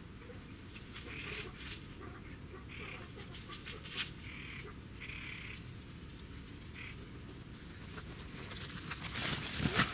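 Birds calling in short repeated calls, several times in the first seven seconds. Near the end, crunching footsteps in snow grow louder and come closer.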